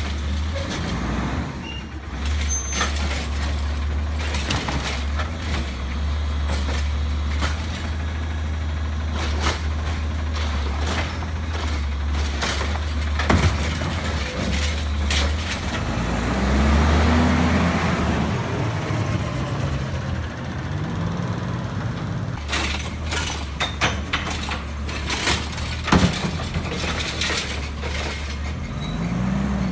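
Automated side-loader garbage truck at work: the diesel engine runs steadily and revs up, rising in pitch, several times as the hydraulic arm lifts and dumps carts, loudest about halfway through. Sharp clanks and hisses of air brakes come in between.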